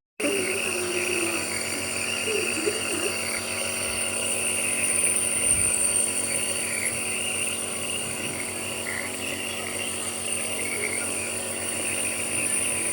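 Compressor nebulizer running steadily, its motor humming under a constant hiss of air and mist.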